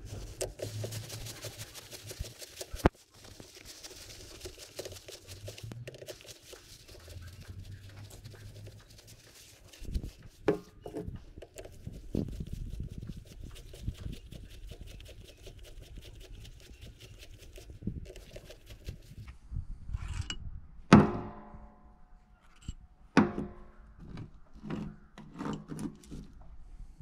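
Metal engine parts and hand tools knocking and clinking during a motorcycle engine teardown. Near the end come two sharp metallic clanks that ring on briefly, like a steel part set down or struck.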